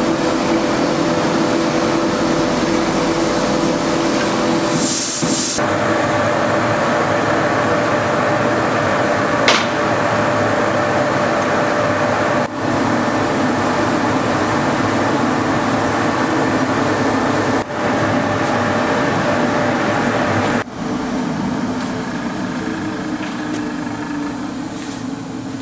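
Gas cylinder shot blasting machine running: motor hum under a dense, steady hiss and rattle of abrasive shot blasting the cylinders. The sound drops out briefly a few times and turns a little quieter and different in the last few seconds.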